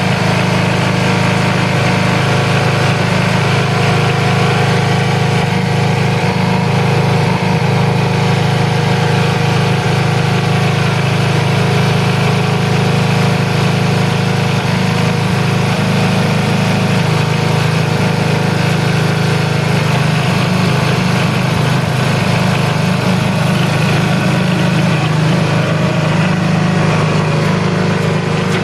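Briggs & Stratton 6 or 8 hp vertical-shaft single-cylinder engine on a John Deere 68 riding mower, running steadily at an even speed.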